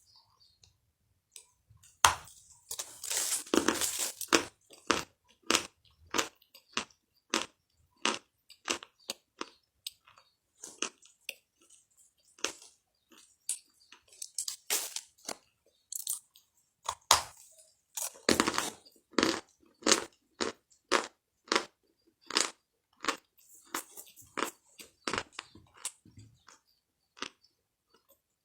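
Crunchy food being chewed: a train of sharp crunches at about two a second, with longer, denser crunching once about two seconds in and again about two thirds of the way through.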